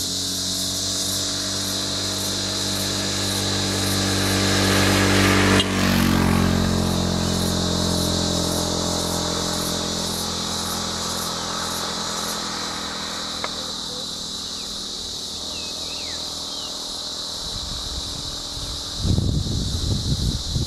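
Steady high insect drone, with a vehicle engine idling low underneath that swells slightly, then fades out about halfway through. Near the end, a couple of seconds of rough low rumbling noise.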